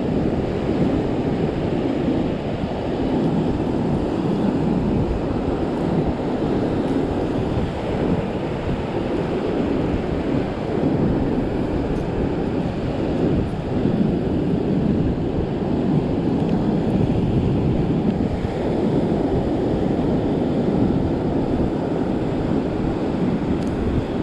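Wind buffeting the microphone over the steady wash of surf breaking on a beach, swelling and easing every few seconds.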